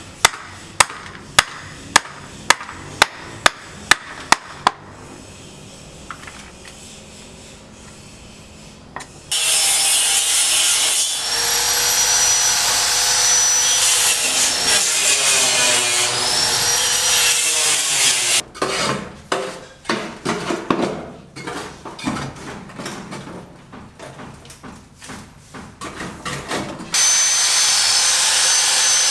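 Building-site tool work. About nine sharp knocks come roughly half a second apart, then a power tool runs loud and steady with a high whine that dips and recovers as it bites. A stretch of irregular rasping, sawing strokes follows, and the power tool starts again near the end.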